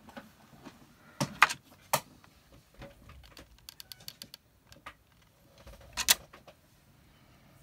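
Clicks and taps of craft embellishments being handled: a spray of pearl beads and a paper tag knocking on a cutting mat. A few sharp clacks come between one and two seconds in and again at about six seconds, with a quick run of small ticks in between.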